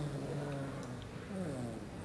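A baby snoring, a short pitched snore on each breath, the pitch dropping at the start of each, about every second and a half.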